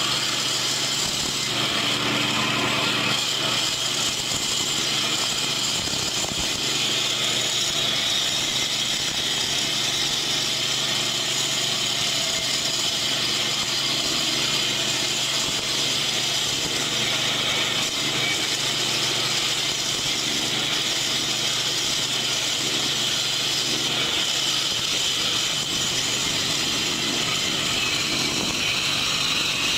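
Concrete cutting saw running steadily, its blade cutting through a concrete slab about 15 cm deep, down to the ground beneath. The sound is a continuous high whine over the machine's engine.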